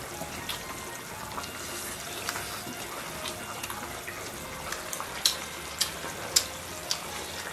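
Hot pot broth bubbling steadily in a copper pot, with several sharp clicks of chopsticks against bowls in the second half.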